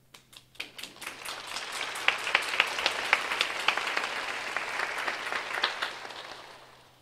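Theatre audience applauding: a few scattered claps at first, building within about two seconds into full, steady applause, then dying away near the end.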